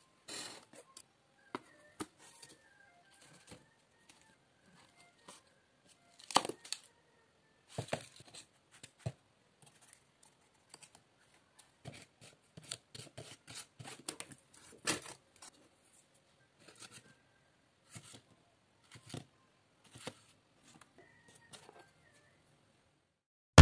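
Cardboard toy pieces being handled: scattered light taps, scrapes and rustles of cardboard against cardboard, with a couple of sharper knocks.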